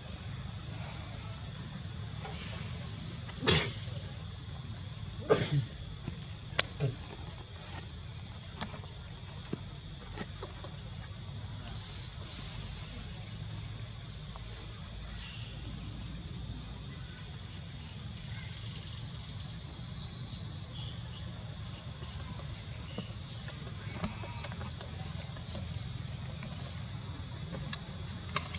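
Steady, high-pitched drone of insects, one unbroken tone, with a few short clicks about three to seven seconds in.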